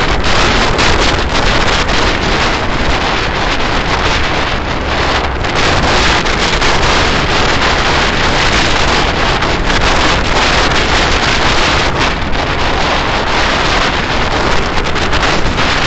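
Loud, steady wind rush on the microphone of a camera mounted on a moving motorcycle, with no distinct engine note or other event standing out.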